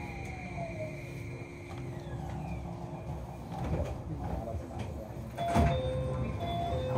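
Keio 5000-series electric train, heard from inside, running with a steady hum and a whine that falls in pitch in the first second. About five and a half seconds in comes a thump, then a two-note chime that sounds twice.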